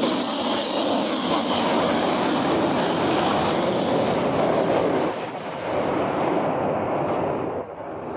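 F-16 fighter jet engine roar after a high-speed pass, a loud, even rumble. It loses its high end about halfway through and grows quieter near the end as the jet pulls away.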